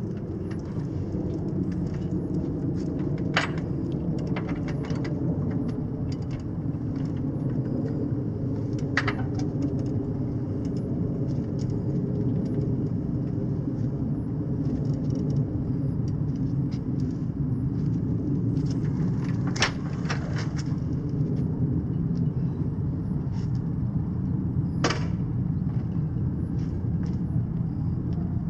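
Steady low outdoor rumble with a few sharp knocks and clanks spread through it, as a heavy electric motorcycle is wrestled out of a self-locking wheel chock and rolled backward off a metal trailer.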